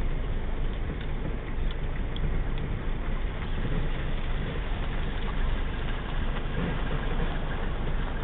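Car running at low speed over a rough unpaved road, heard from inside the cabin of a Mercedes-Benz. Steady engine hum mixed with tyre and road rumble.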